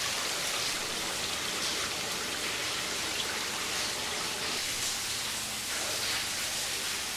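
Steady, even hiss with no distinct sounds standing out.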